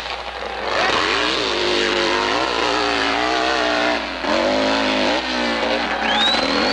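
Hillclimb motorcycle engine revving hard under load up a steep dirt hill, its pitch rising and falling with the throttle and dipping briefly about four seconds in and again about a second later. A high, wavering whistle starts near the end.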